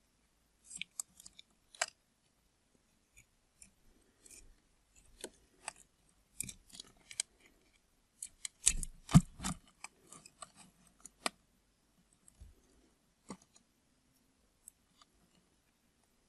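A blade cutting through a block of dried soap into cubes: scattered crisp clicks and crackles, densest and loudest about nine seconds in, then thinning out.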